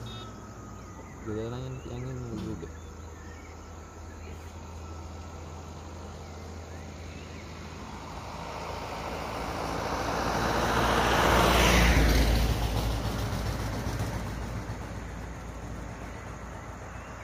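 A motor vehicle passes close by on the road. Its engine and tyre noise swells steadily to a peak about twelve seconds in, then fades away.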